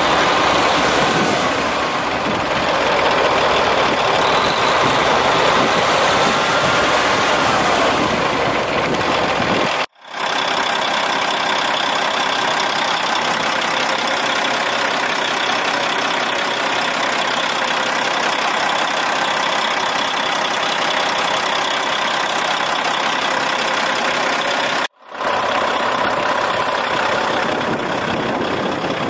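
Caterpillar C13 inline-six diesel in a 2007 Peterbilt 379 idling steadily. The sound cuts out abruptly twice, about a third of the way in and near the end, then comes straight back.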